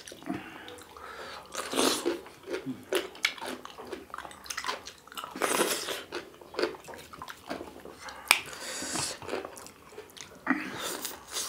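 Close-miked chewing and wet mouth sounds of two people eating finger-millet dhido and chicken curry with their hands, with many irregular smacks and clicks.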